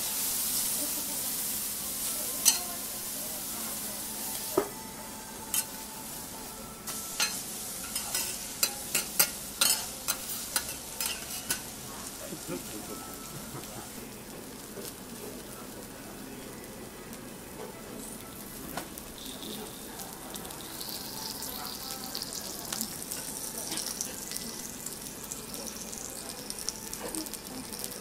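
Okonomiyaki and green peppers sizzling steadily on a steel teppanyaki griddle. Through the first half a metal spatula clicks and taps sharply on the griddle, and the sizzle swells louder near the end.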